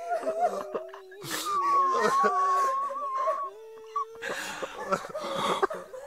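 A group of men and women crying together: overlapping sobs and whimpers, with one voice holding a long high wail for about two seconds and gasping in-breaths between cries.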